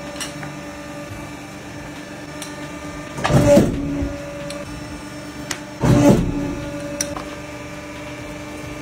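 Hydraulic swing-arm leather cutting press humming steadily, with two loud surges about three and a half and six seconds in as the beam is brought down to cut the leather.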